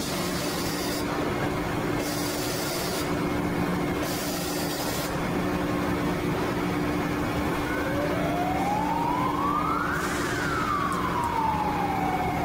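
Steel strip processing line machinery at the coil-joining welder: a steady low hum with several bursts of hiss in the first half. About eight seconds in, a whine rises in pitch for about two seconds, then slowly falls away.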